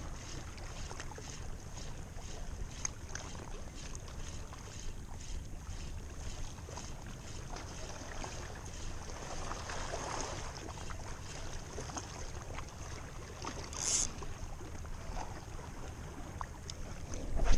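Wind buffeting the microphone, with a fishing reel being cranked to retrieve a lure, its handle ticking a few times a second. A brief hiss comes about three quarters of the way through, and a louder knock comes right at the end.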